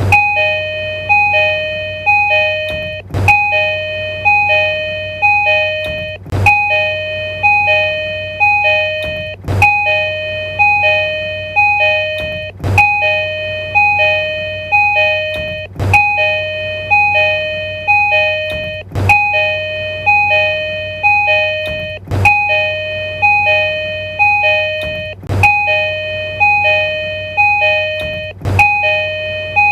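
Tokyu Railway train door chime: a two-tone high-low chime repeating over and over without a break. A sharp click comes about every three seconds, and a steady low hum runs underneath.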